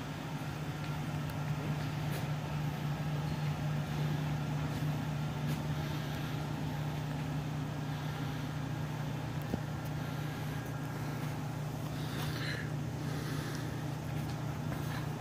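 Steady low hum of room background noise, with a few faint rustles about three quarters of the way through.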